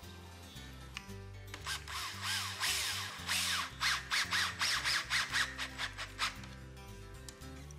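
DeWalt 12-volt cordless drill driving a screw into a PVC pipe: it runs for about two seconds, then in a string of short trigger pulses as the screw seats, stopping near the end. Background music plays underneath.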